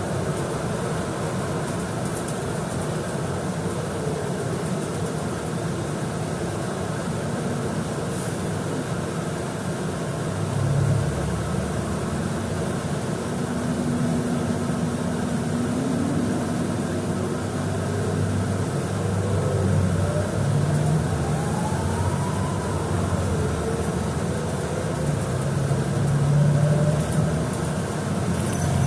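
Street traffic with an engine idling, then a vehicle pulling away about halfway through, its whine rising in pitch, dipping and rising again.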